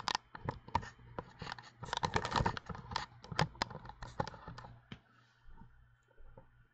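A run of quick, irregular clicks and taps that thins out about five seconds in.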